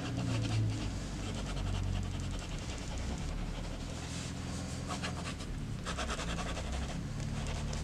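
Paint-pen nib scribbling back and forth on mixed media paper in soft, intermittent scratchy strokes, over a steady low hum.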